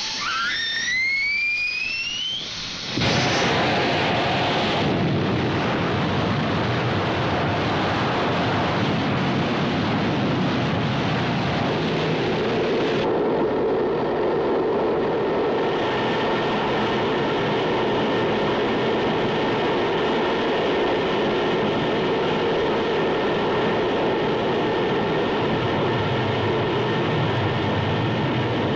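Oil well blowout: a rising whine over the first two seconds or so, then about three seconds in a sudden loud roar of gas rushing out of the well, which runs on steadily, with steady tones joining it partway through.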